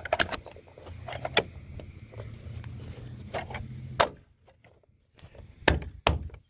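Roof rack parts being handled and pushed into place: scattered sharp clicks and knocks of plastic and metal, with two loud knocks close together near the end.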